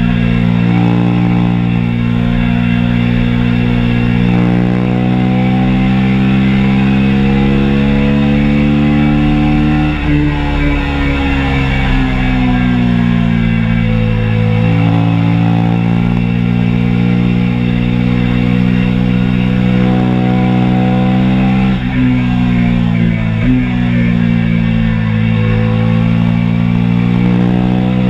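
2022 KTM RC 390's single-cylinder engine running hard at high revs. Its pitch climbs over the first ten seconds, falls away, then climbs again, with two short breaks near the end. Rock music plays alongside.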